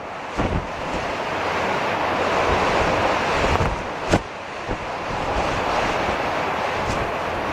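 Storm wind buffeting the microphone over the wash of breaking surf, swelling after the first second, with a short sharp knock about four seconds in.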